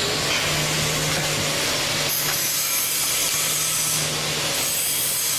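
Steady rasping of workshop tools working on a car body as it is being stripped, over a low hum that comes and goes.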